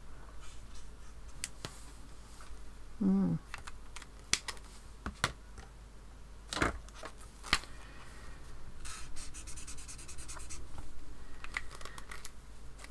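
Felt-tip brush pen stroking and scratching on paper, with scattered sharp clicks of pen caps snapping on and pens set down on the desk. A brief hummed 'mm' about three seconds in.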